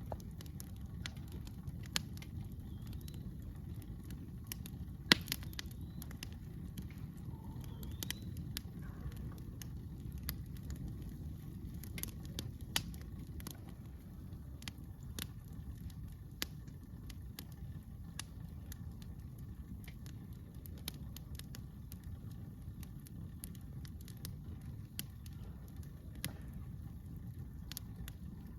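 Campfire crackling, with irregular sharp pops over a low steady rumble; the loudest pop comes about five seconds in.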